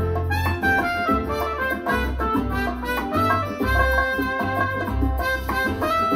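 Brass-led music with a bass line that steps between low notes every half second or so, played back through an Icon Audio MFV 3 Super floorstanding loudspeaker.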